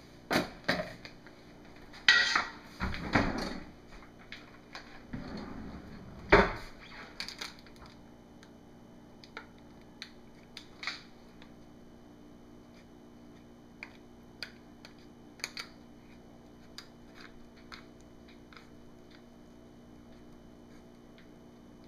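Knocks and light clicks of soap-making utensils being handled at the mould: several louder knocks in the first seven seconds or so, then scattered faint ticks.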